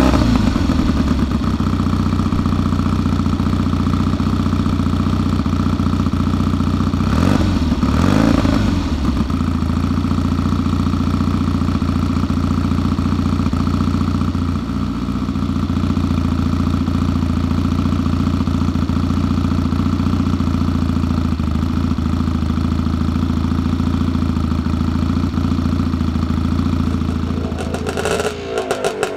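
Classic scrambler motorcycle's engine idling steadily, blipped on the throttle twice, about seven and eight seconds in. Near the end a different engine sound takes over.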